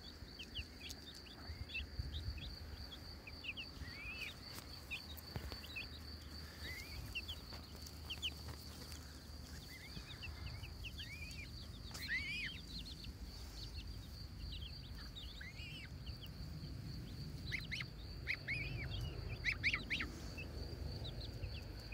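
Young goslings, ducklings and chicks giving soft, scattered peeps, many of them rising then falling, over a steady high-pitched whine.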